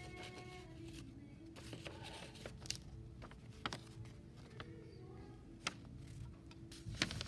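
Quiet classroom room tone: a steady low hum with faint distant voices, broken by a few light, sharp taps and clicks.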